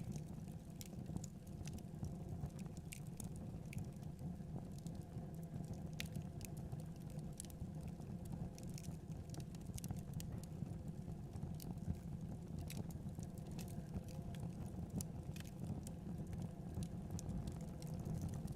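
Log fire in a fireplace crackling, with irregular sharp pops and snaps over a steady low rumble.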